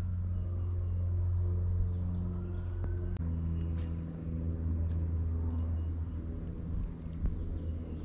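A steady low motor drone, its pitch shifting slightly about three seconds in, with a few faint clicks over it.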